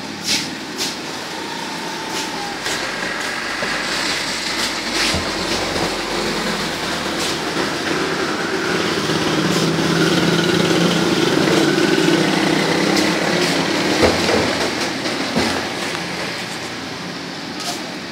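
Motorcycles passing on the street, building to loudest around the middle and then fading away. There are a few sharp clicks near the start.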